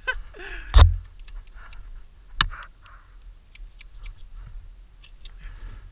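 A heavy thump about a second in and a sharper knock a second and a half later, among light scattered clicks and ticks.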